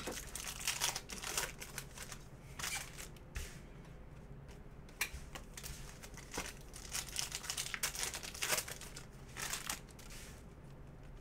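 Foil trading-card pack wrapper (Panini Prizm retail pack) torn open and crinkled by hand, in irregular crackling bursts.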